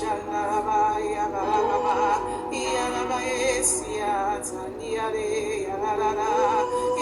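Slow worship music with a voice singing long held, wordless notes with vibrato over a sustained instrumental backing.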